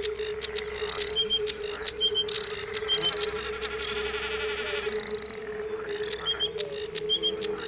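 Marsh wildlife sounds: several birds singing and calling, with short paired high notes repeating about once a second, over a steady low hum.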